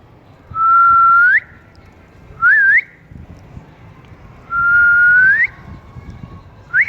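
A loud, clear whistled phrase given twice: a held steady note that sweeps upward at the end, then a short twisting upward note.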